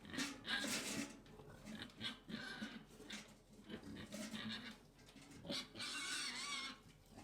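A pig grunting and snuffling in short, irregular bouts, with one longer, wavering squeal about six seconds in.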